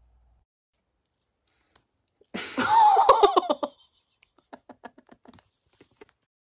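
A loud, high-pitched vocal outburst lasting about a second, wavering in pitch, followed by a run of short soft bursts of laughter.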